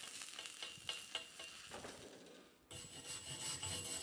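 Stick (arc) welding on a steel pipe joint: the arc crackles and spits with a few sharp pops, and stops about two and a half seconds in. Then a wire brush rasps over the weld to clean off the slag.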